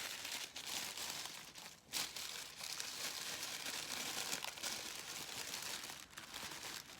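Tissue paper crinkling and rustling continuously as it is handled and unwrapped, with a sharper crackle about two seconds in.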